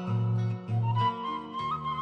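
Background music: a bamboo flute (suling) playing a slow, held melody that steps between notes, over low accompanying notes.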